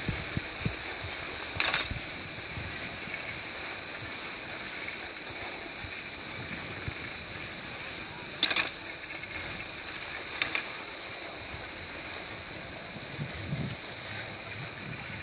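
Steady outdoor background hiss with a constant thin high tone, broken by three brief sharp clicks, about two, eight and a half, and ten and a half seconds in.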